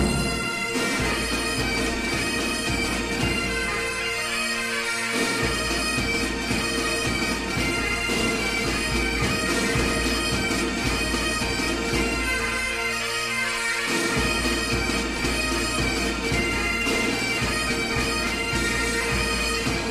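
Bagpipe music: a chanter playing a tune over a steady drone, with the low accompaniment dropping out briefly twice.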